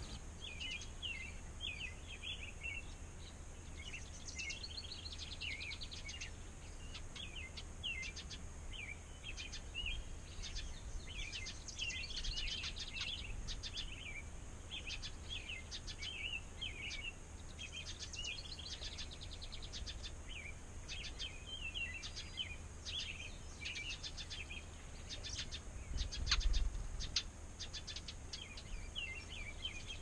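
Small songbirds chirping in many quick, high calls throughout, over a steady low rumble that swells briefly a few seconds before the end.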